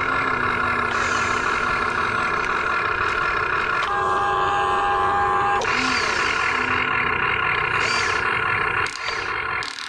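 Huina RC excavator working its arm and bucket: a steady whine of its motors that shifts pitch a few times as the movements change and drops away briefly near the end.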